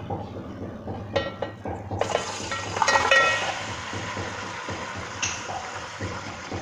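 Boiled goat trotters tipped from a plate into hot oil in a metal pot: a few metallic clinks, then a sudden sizzle about two seconds in. It is loudest around three seconds with more clinks, then settles into a steady frying hiss that slowly fades.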